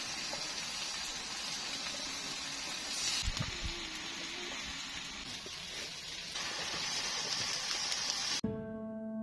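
Food sizzling in a frying pan, a steady hiss that shifts slightly twice, as if across cuts. Near the end it stops abruptly and soft piano music begins.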